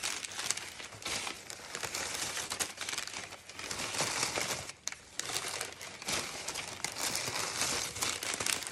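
Crumpled white packing paper crinkling and rustling as it is pulled out of a cardboard shipping box, in an irregular run of crackles with a brief lull about halfway through.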